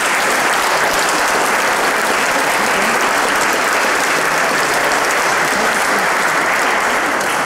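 Audience applauding: sustained, steady clapping from a seated crowd, starting as a speech ends.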